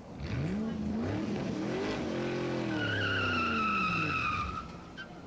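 Sound effect of a car engine revving up and winding back down, with a high tyre squeal over the second half that fades out about four and a half seconds in.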